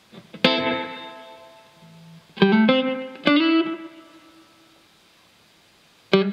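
Electric guitar played through a Caline Ghost Rain reverb/delay pedal: a chord struck about half a second in, then two more strikes, each ringing out and fading. Near the end a short note is followed by quick, fading delay repeats, about four or five a second, from a short delay time setting.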